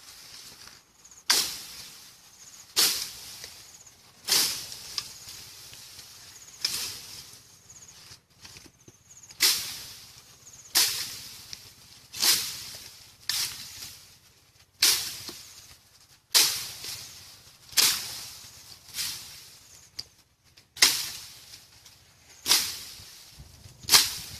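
A stick swung hard into dense bamboo and brush over and over, each stroke a sharp swish and crash of leaves that fades within about a second, roughly one every one and a half seconds.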